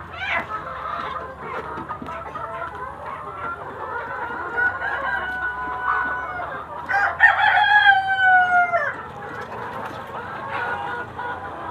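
A flock of chickens clucking and calling over one another, with a rooster crowing loudly about seven seconds in, its long call falling in pitch at the end.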